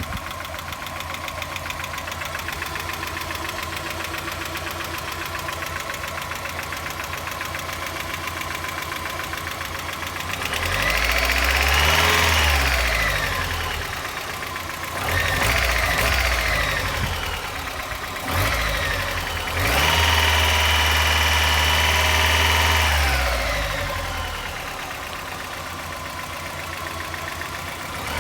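1990 Mazda Miata's 1.6-litre four-cylinder engine idling with a rapid light ticking, which the owner asks about as possible lifter tick. From about ten seconds in it is revved up and let fall back three times, then returns to idle.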